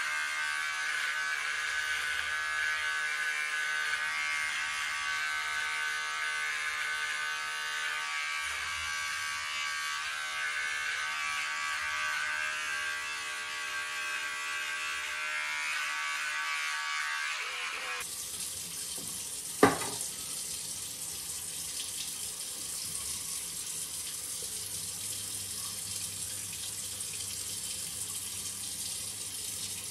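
Electric trimmer buzzing steadily as it cuts stubble along the jaw and chin, stopping abruptly about two-thirds of the way through. A tap then runs water steadily, with one sharp knock shortly after it starts.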